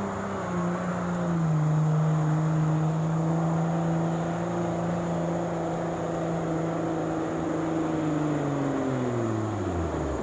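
International Harvester super stock pulling tractor's turbocharged diesel engine running flat out under load while pulling the sled. Its pitch holds steady, then falls steadily over the last couple of seconds as the engine comes down in speed.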